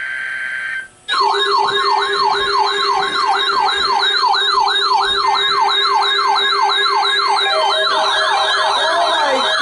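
The tail of a NOAA Weather Radio SAME data burst, a steady shrill buzz, cuts off under a second in. Then weather alert radio receivers sound their siren alarms: a fast wailing tone rising and falling about two to three times a second, joined about seven seconds in by a second, slower wailing alarm. The alarms are set off by the station's required weekly test tones.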